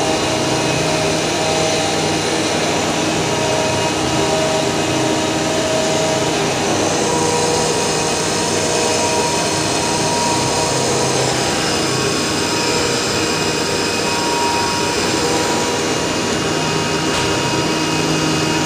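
CNC flatbed cutting machine running as it cuts a PP hollow sheet: a steady rushing, vacuum-like roar with faint tones that come and go as the cutting head moves.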